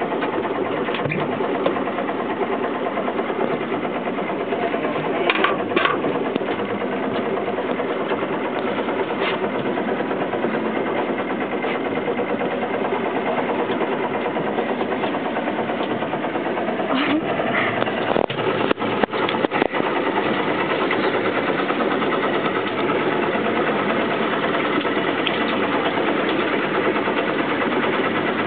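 Fishing boat's engine running steadily at low speed, with a few short knocks about a fifth of the way in and again past the middle.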